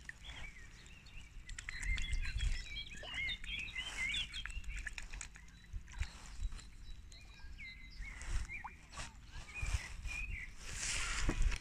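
Small birds chirping and twittering in quick, repeated phrases, over a low rumble on the microphone; a paddle dips into the water near the end.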